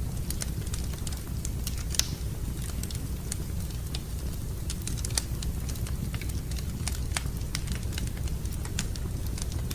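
Wood fire crackling in a fireplace: irregular sharp pops and snaps over a steady low rumble of the burning flames, with a louder pop about two seconds in and another near the middle.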